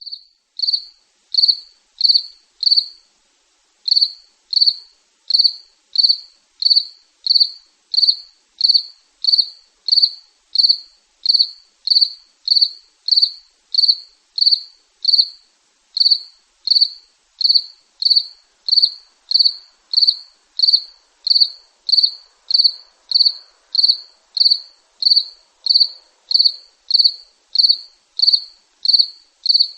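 A cricket chirping steadily: short, high chirps repeated about three every two seconds, with a brief pause about three seconds in.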